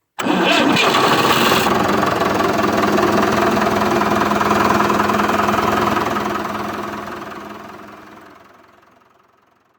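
An engine running steadily, with a brighter hiss over the first second and a half, then fading out over the last few seconds.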